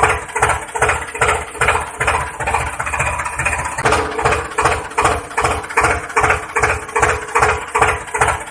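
Tractor engine idling with a steady chugging beat of about three pulses a second.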